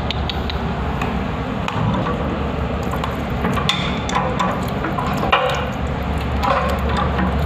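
Water running, with a steady low hum and scattered light clicks of parts being handled.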